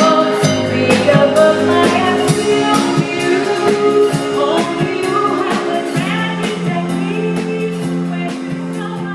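Music: a band playing a song with a singer, guitar and drums, slowly getting quieter toward the end.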